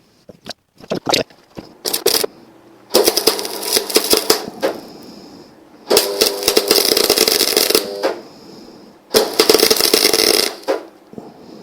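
MIG welder arcing onto a broken stud in a Ford flathead V8 block, a crackling, spattering arc with the wire-feed hum. It starts with a few short tacks, then runs three longer welds of about two seconds each with pauses between.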